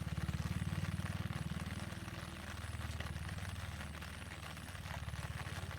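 A vehicle engine running with a low, rapid pulsing, loudest near the start and slowly easing off.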